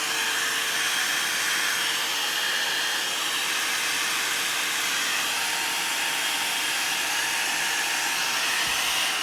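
One-step blow dryer brush running steadily on its high heat setting: a rush of air with a steady motor whine underneath.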